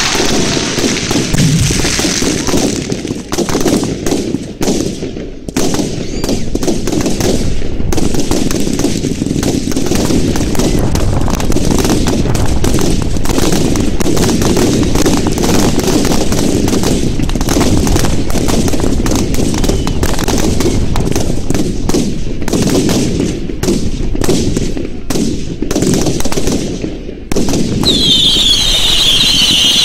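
A fireworks display: crackling shell bursts and bangs going off in rapid, continuous volleys, like machine-gun fire. Near the end, several shrill whistling fireworks start up over the bangs, their pitch dropping slightly.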